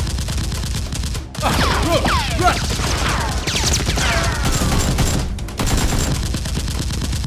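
Rapid gunfire sound effects dubbed over a Nerf blaster fight: a dense fusillade of shots, with several falling whistles in the middle.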